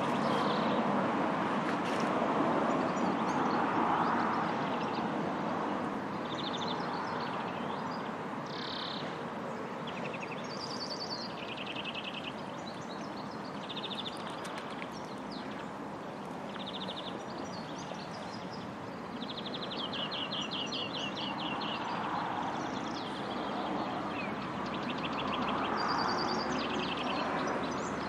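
Small songbirds singing short, rapid trills and chirps again and again over a steady outdoor background noise.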